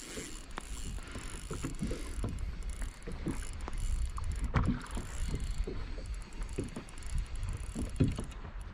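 Handling noise on a Hobie Compass kayak while a hooked fish is brought in: irregular small knocks, clicks and water sounds over a low rumble.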